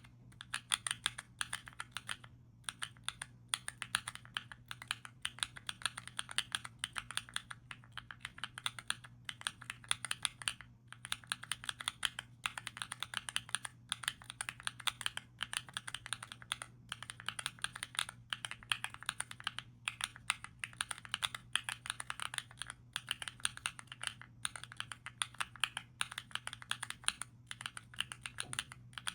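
Rapid typing on mechanical key switches, Epomaker Zebra switches: a dense run of soft keystroke clicks with a few short pauses, over a faint steady low hum.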